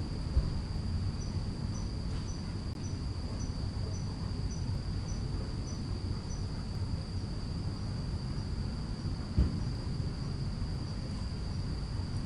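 Insects calling: a steady high trill with a regular chirp about twice a second that fades toward the end, over a steady low rumble. Two dull thumps stand out, one just after the start and one about nine seconds in.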